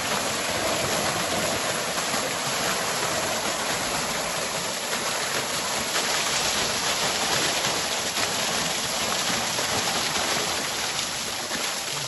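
Small waterfall pouring steadily off a rock ledge, the water splashing onto rocks and onto a person sitting beneath it.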